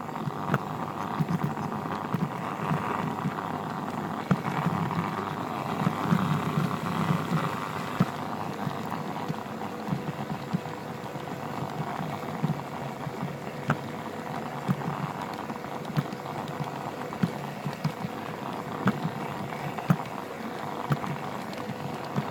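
G-scale garden model train running along its track, heard from on board: a steady rumble of the wheels and drive with many irregular clicks, and a faint steady tone underneath.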